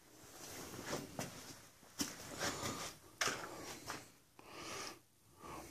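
Faint irregular scuffs and a few short clicks from someone moving about while handling a handheld camera.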